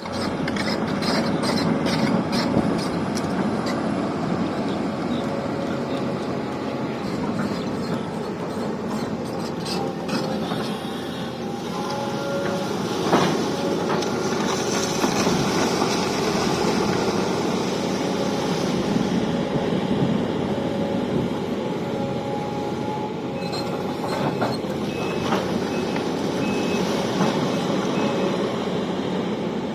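Sumitomo SH350 hydraulic excavator's diesel engine running steadily, with clanks and knocks in the first few seconds and one loud sharp crack about 13 seconds in. Near the end a short beep repeats several times.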